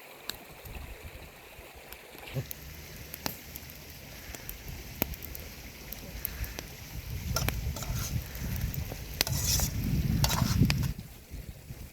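Food frying in a pan, with scattered sharp clicks and pops over a steady hiss, and a low rumble that swells near the end.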